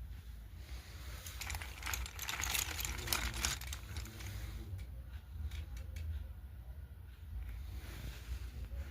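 Crinkling and crackling with scattered sharp clicks, densest a couple of seconds in and thinning out to separate clicks after.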